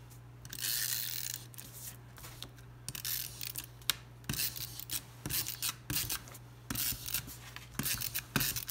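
A hand-held adhesive tape runner is drawn across cardstock in a rasping stroke about half a second in. Then come shorter strokes, clicks and rubbing as the paper is handled and pressed down.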